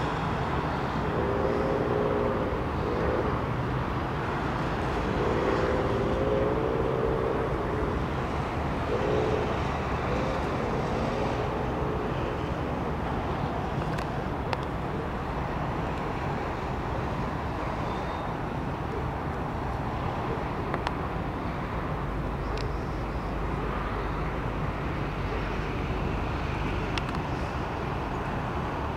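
Distant city traffic, a steady even hum, with a few brief pitched sounds in the first twelve seconds.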